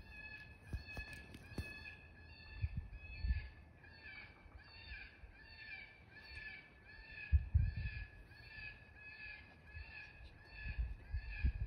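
Electronic predator call playing a harsh, crow-like call, repeated about twice a second at an even, unchanging rhythm. A few low thumps break in, the loudest about two thirds of the way through.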